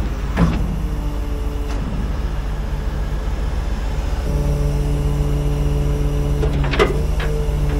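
Heavy truck's diesel engine idling steadily, with a lower steady hum joining about four seconds in and a few light knocks.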